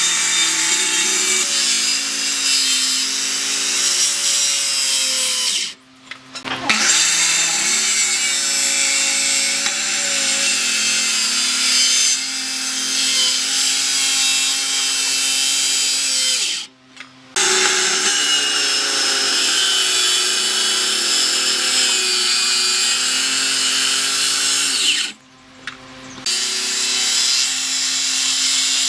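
Maktec handheld circular saw running under load as its blade cuts into a log, a steady motor whine with a hiss of cutting wood. It breaks off briefly three times before starting again.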